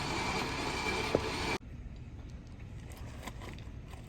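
Steady vehicle running noise with a single click, cut off abruptly about one and a half seconds in, leaving a quiet background with faint scattered clicks.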